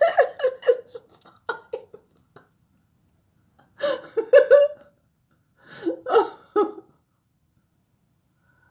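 A person laughing in short bursts: a run of quick chuckles at the start, then two more bursts of laughter about four and six seconds in.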